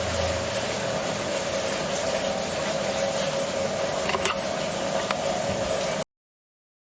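Steady hiss with a constant mid-pitched hum under it and a couple of faint clicks, cutting off suddenly about six seconds in.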